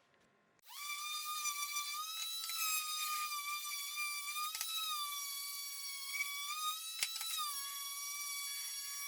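High-pitched electric motor whine from a wood lathe. It starts suddenly under a second in and holds steady with slight wavers in pitch, over a few faint clicks.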